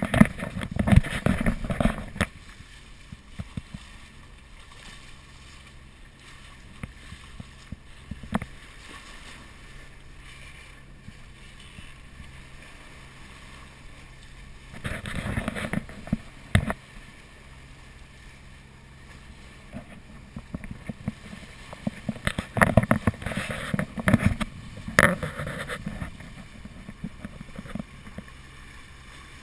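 Wind buffeting the microphone and water rushing along the hull of a catamaran under way, over a low steady hum. The wind and water noise swells in three louder gusty spells: at the start, about halfway through, and again near the end.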